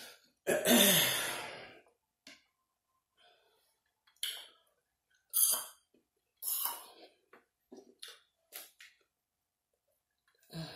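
A woman's long, loud sigh with a falling pitch, about half a second in. It is followed by a series of short, sharp eating noises as she works through a saucy seafood boil by hand.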